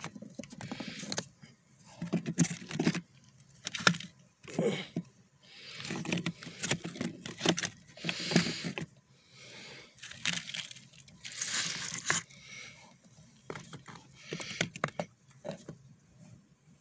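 Cork bark, wood pieces and dry moss being handled and shifted in a cockroach enclosure: irregular rustling, crackling and clicking in short bursts, with brief pauses between them.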